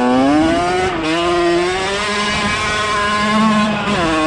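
Dirt bike engine running under throttle as it is ridden. The revs climb for about a second, then fall sharply and hold fairly steady with a slight rise, dip again briefly near the end and pick back up.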